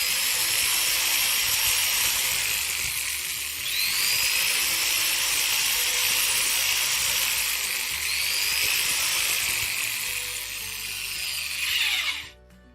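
Electric hand drill running, enlarging the holes in a terminal connector strip. Its high whine dips and recovers twice as the bit bites, then winds down and stops near the end.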